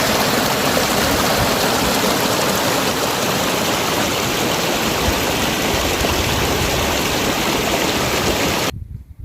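Rushing water of a waterfall: a loud, steady, unbroken wash of falling water that cuts off suddenly near the end.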